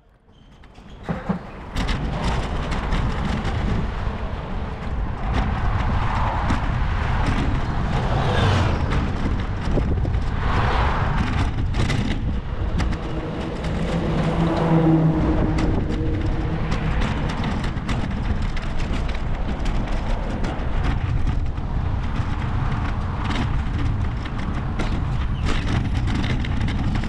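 Road traffic heard while cycling: a steady rumble of motor vehicles with frequent knocks and rattles, and a low hum about halfway through.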